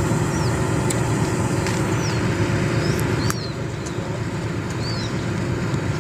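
A steady low rumble, like a distant motor, eases slightly a little over three seconds in. Over it, birds give short, high, falling chirps about once a second, with a few faint clicks.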